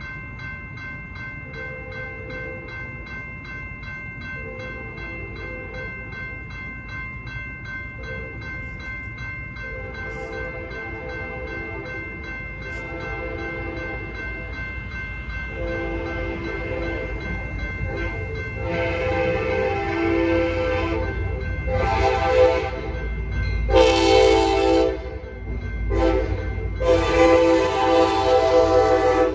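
Railroad crossing bell ringing steadily while an approaching EMD F59PHI diesel locomotive sounds its horn in a series of blasts that grow louder and longer. The last long blasts are the loudest, over the building rumble of the arriving train.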